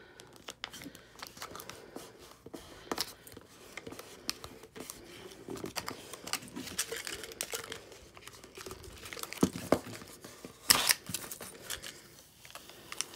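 Clear plastic transfer tape crinkling and crackling as hands press and smooth a vinyl decal onto a plastic cup, with irregular small clicks of handling and a couple of louder crackles about nine and a half and eleven seconds in.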